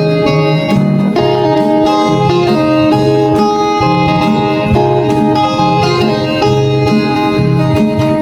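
Instrumental background music led by a plucked string instrument like a guitar, playing a busy melody at a steady level.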